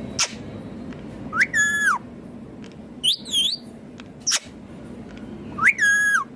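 Indian ringneck parakeet calling: five calls in all, short sharp ones mixed with two longer whistled notes that rise and then hold level, plus a wavering high call in the middle.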